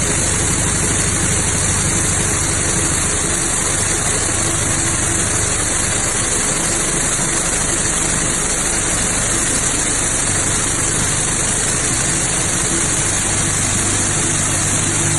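A machine running at a steady, unchanging speed: a constant low hum under a strong even hiss, like an engine at idle.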